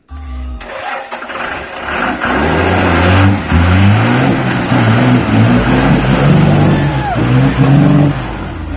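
Lifted full-size Ford Bronco's engine revving hard, the revs rising and falling again and again as its mud tires spin in loose dirt and mud; it builds from about a second in.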